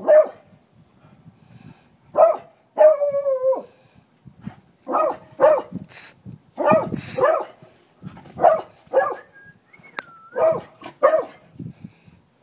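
Dog barking at a rooster it is squaring off with: about a dozen short, separate barks with gaps between them, one drawn out longer about three seconds in.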